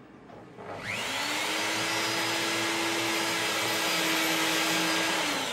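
Handheld rotary tool fitted with a small diamond cutting disc spins up about a second in and runs steadily with a dense grinding hiss as it saws into a circuit board. Its pitch drops as it winds down near the end.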